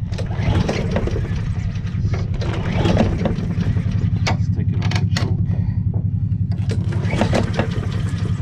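Honda Harmony II lawnmower's overhead-cam single-cylinder engine running steadily after sitting unused for a long time, with a few short knocks about four to five seconds in.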